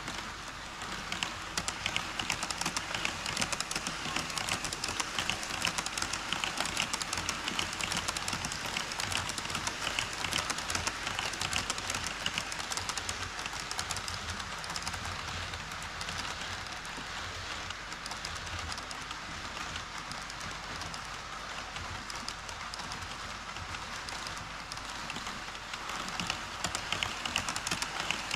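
HO-scale model trains rolling across a model truss bridge on KATO Unitrack. The metal wheels on the rails and joints make a dense, steady clatter that grows louder about a second in.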